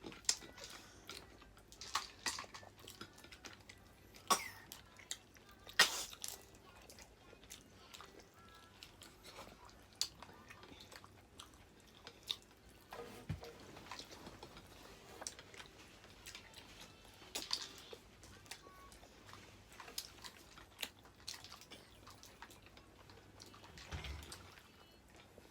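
Close-up eating of seafood: chewing, with scattered sharp clicks and cracks every second or two.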